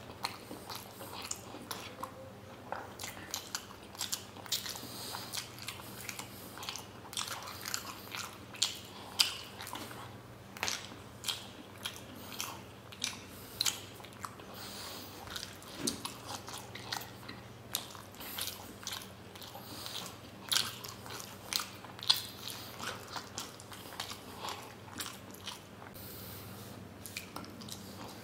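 Close-miked mouth sounds of a person biting and chewing paneer momos: a continuous run of short, wet smacks and clicks.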